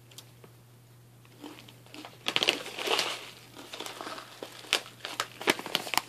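Plastic snack pouch crinkling as it is handled, a quick run of sharp crackles starting about two seconds in.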